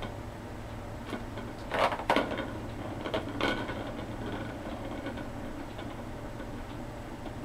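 A kitten batting at a plastic ball-track cat toy, making a few knocks and rattles, the loudest cluster about two seconds in and more about three and a half seconds in. A steady low hum runs under it.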